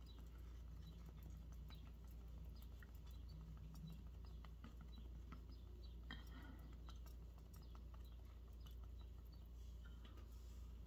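Near silence: quiet room tone with a low hum and faint, scattered small clicks and taps of makeup being handled and applied.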